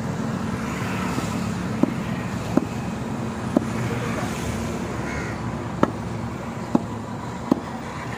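Meat cleaver chopping pork on a round wooden chopping block: six sharp knocks at uneven intervals, over a steady background rumble.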